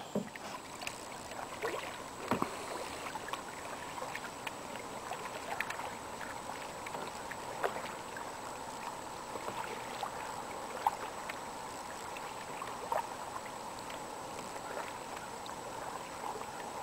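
Canoe paddle strokes on calm water: soft splashes and drips at irregular intervals, a few louder than the rest, over a faint steady hiss.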